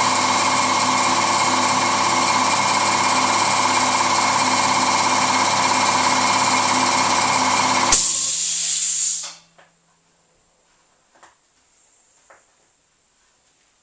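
Electric air compressor running steadily, then cutting out about eight seconds in with a click and a short hiss of released air as it reaches pressure. A few faint knocks follow.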